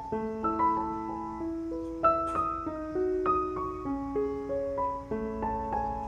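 Background piano music: a melody of struck notes over lower held notes.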